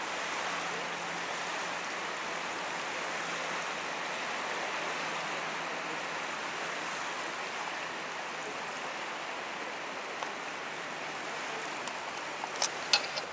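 Steady hiss of small waves washing onto a sandy beach. A few sharp clicks come near the end.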